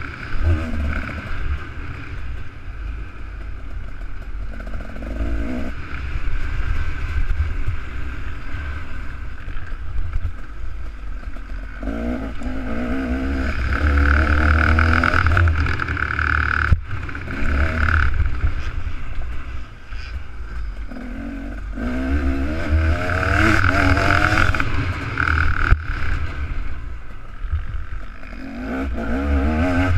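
Two-stroke motocross bike engine revving hard under load, its pitch climbing and dropping again and again as the rider works through the gears. A couple of sharp knocks cut through, one about halfway and one near the end.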